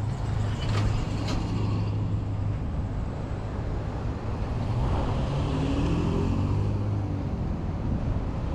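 Road traffic: vehicle engines running with a steady low hum, with engine pitch shifting about five seconds in as a vehicle moves.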